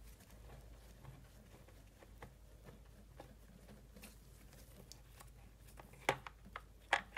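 Light clicks and taps of a gloved hand handling plastic and metal parts in an engine bay, with a few sharper clicks about six to seven seconds in.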